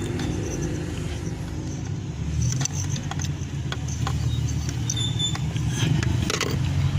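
A car engine idling steadily, with a few light clicks and knocks scattered through the middle.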